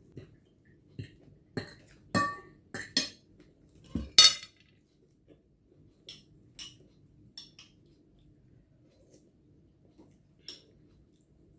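Cutlery clinking against a plate and a small glass bowl: a quick run of sharp clinks, some ringing briefly, the loudest about four seconds in, then a few lighter spoon taps.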